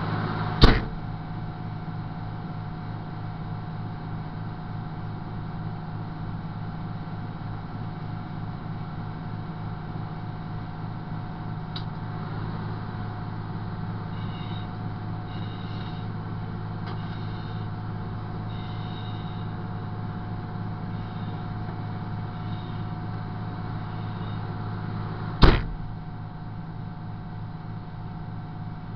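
Fire engine idling, a steady low drone with a constant hum, heard from inside its cab. Two sharp knocks land, one about a second in and one near the end, and a faint run of short high beeps comes around the middle.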